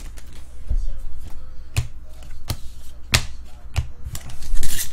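Trading card packs and cards handled on a tabletop: a run of four sharp clicks about two-thirds of a second apart, with a dull thump near the start and a louder one near the end. Faint background music runs underneath.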